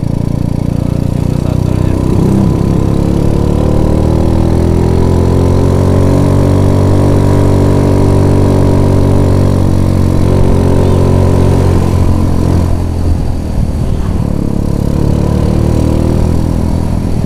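Small motorcycle engine running while riding. Its pitch climbs over the first few seconds, holds steady, then falls back about twelve seconds in as the throttle eases, before picking up again.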